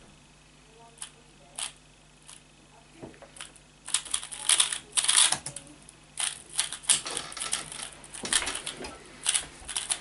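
Plastic 3x3 speed cube being turned by hand, its layers clicking and clattering. There are a few scattered clicks at first, then rapid clusters of turns from about four seconds in.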